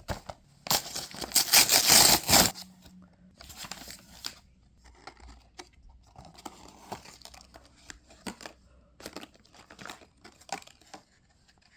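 Watch packaging being torn open: a loud tearing sound lasting about two seconds near the start, followed by quieter rustling and small clicks as the packaging is handled.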